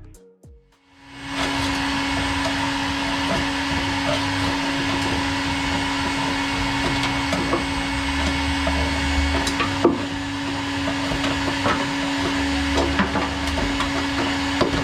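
A small electric tool with a motor and fan starts about a second in and runs steadily with a constant hum, while scraping and light ticking sound over it as old sound-deadening is worked off a car's steel floor pan.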